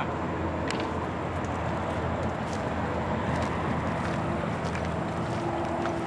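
Steady outdoor background rumble and hiss, with a few faint short high chirps or clicks scattered through it and a faint steady hum joining in past the midpoint.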